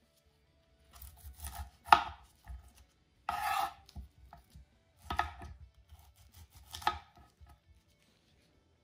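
Cauliflower being cut into florets with a serrated knife on a wooden cutting board: three sharp knocks of the blade on the board, with crunching and rustling of the florets between them.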